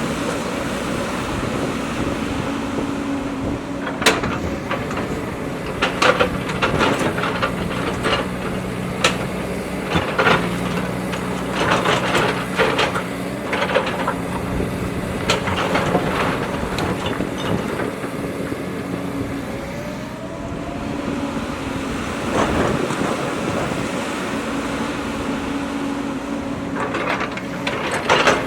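JCB backhoe loader's diesel engine running steadily, with a scatter of sharp knocks and clanks from the working machine.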